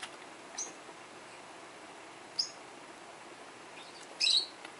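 Peach-faced lovebird giving short, high chirps: two brief single chirps, then a louder cluster of chirps near the end.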